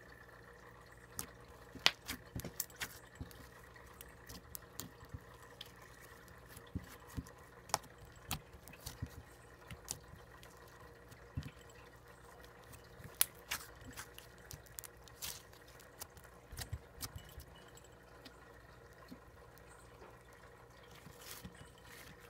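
Slime being stretched, poked and squeezed by hand, giving many small irregular clicks, over a faint steady hum.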